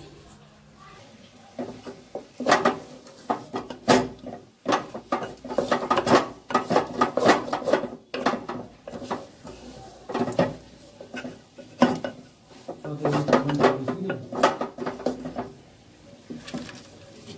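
A metal utensil clanks and scrapes against a cooking pot in irregular bursts of strokes while chana halwa is stirred.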